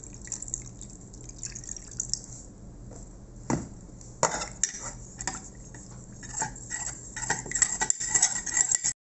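Water trickling into tapioca starch in a glass bowl, then a steel spoon stirring the slurry and clinking against the bowl's side again and again, more often near the end.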